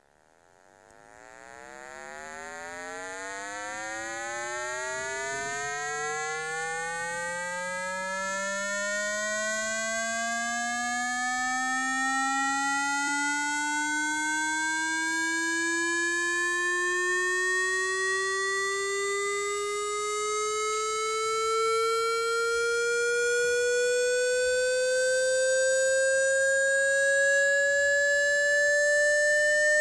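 Synthesized speaker-cleaning tone, played to vibrate water out of a phone speaker. It fades in and then climbs slowly and evenly in pitch, from a low hum to a higher buzzy tone, getting louder throughout.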